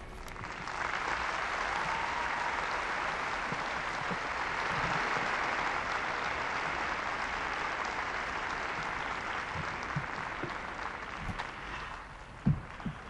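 Arena audience applauding steadily at the end of a figure skating pairs program; the applause swells in just after the start and thins near the end. A single sharp thump sounds shortly before the end.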